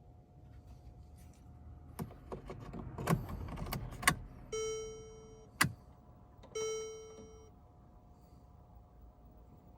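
Key and switch clicks and rattles as a 2012 Mercedes CLS550's ignition is tried, then two electronic warning chimes from the car about two seconds apart, over a faint steady hum. The starter does not crank: a no-crank fault that the owner traced to a failed front SAM module.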